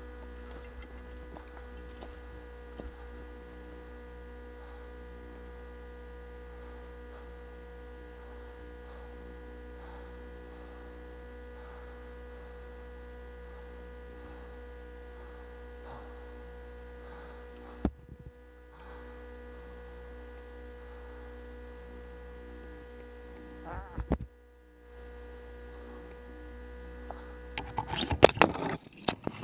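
Steady electrical hum made of several fixed tones. It is broken by two short clicks with brief dropouts in the middle. Near the end, loud rustling and scraping takes over.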